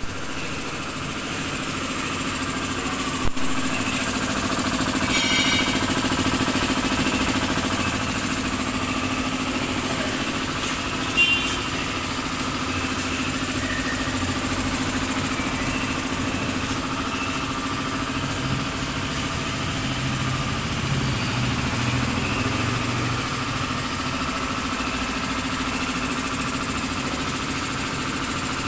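Montoya 3 HP belt-driven twin-cylinder air compressor running steadily, its electric motor turning the pump with a constant hum. Twice a short sharp knock stands out, the louder one about eleven seconds in.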